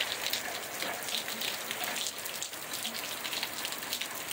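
Heavy rain falling steadily: a dense, even hiss made of countless fine drop patters.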